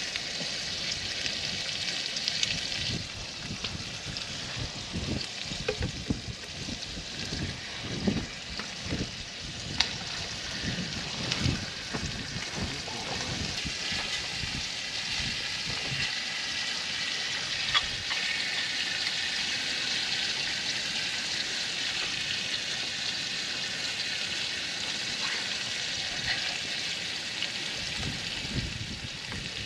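Meat sizzling on a small camp grill heated by solid fuel tablets: a steady hiss that grows a little stronger about halfway through, with scattered clicks and knocks of tongs and handling in the first half.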